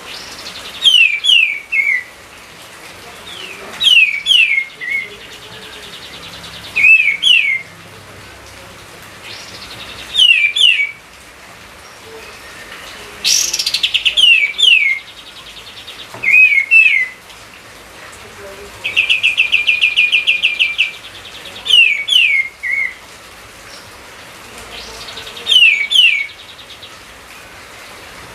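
A songbird singing close and loud, repeating a short phrase of two or three quick down-slurred whistles about every three seconds. About two-thirds of the way in, the phrase gives way to a rapid buzzy trill lasting around two seconds.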